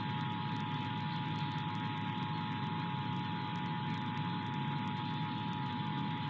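Emergency Alert System attention signal: the steady two-tone alarm of two pitches sounding together just under 1 kHz, marking a Required Monthly Test. A steady hiss runs beneath it.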